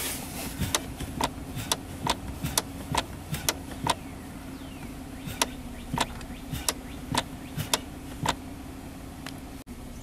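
Gear-shifter shift-lock mechanism of a 2011 Kia Sorento clicking each time the brake is pressed, with the engine idling. The sharp clicks come about two a second at first, then more slowly, and stop near the end. The owner traces the click to the shifter lockout lever being loose on the shaft it pivots on.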